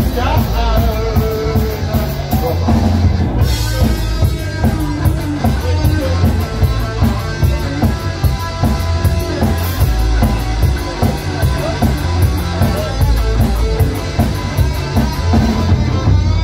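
Punk rock band playing live: a drum kit keeping a fast, even beat on the cymbals, with electric guitar and bass. There is a cymbal crash about three and a half seconds in.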